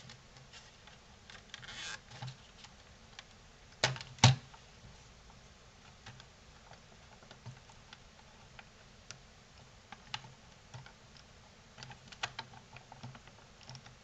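Plastic clicks and creaks of a pry tool working at the clipped seam of a PlayStation 4 power supply's plastic casing, with two sharp snaps close together about four seconds in.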